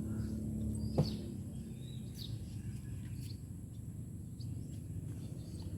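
A few short, high bird chirps scattered over a steady low outdoor rumble, with one sharp click about a second in.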